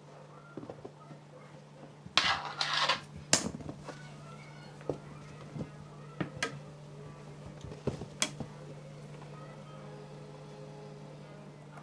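A short rattling clatter about two seconds in, followed by a few sharp clinks spread out over the next several seconds, over a steady low hum.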